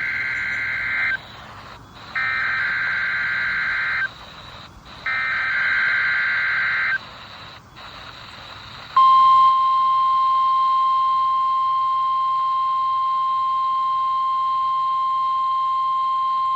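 NOAA Weather Radio SAME alert header: three bursts of warbling digital data tones, about a second apart. From about nine seconds in comes the steady 1050 Hz warning alarm tone, marking the start of a Required Weekly Test.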